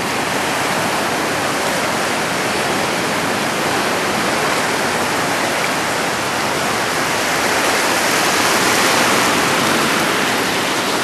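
Ocean surf: waves breaking and foam washing through the shallows close at hand, a steady rushing wash that swells a little about eight seconds in.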